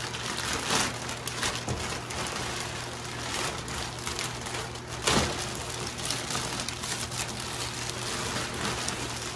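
Plastic mailer bag crinkling and rustling as it is handled and torn open, with sharper crackles about a second in and about five seconds in.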